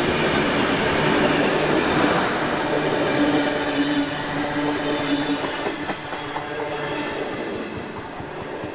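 Diesel-hauled passenger train passing, wheels clattering over the rails as its stainless-steel carriages roll by, with a brief whine in the middle. The sound slowly fades towards the end.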